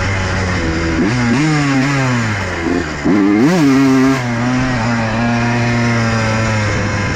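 Honda CR125 single-cylinder two-stroke dirt bike engine revving as it is ridden: the pitch climbs and drops at about one second, jumps sharply louder in a quick rev about three and a half seconds in, then settles to a steady drone.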